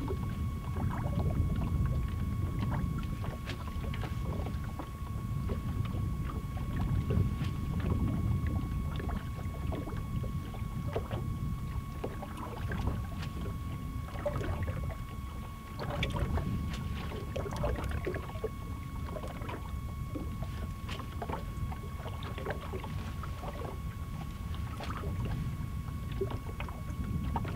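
Low rumble of wind and water around a small fishing boat, with scattered clicks and taps from a spinning rod and reel as a swimbait is ripped and reeled in. A steady, faint, high whine sits underneath.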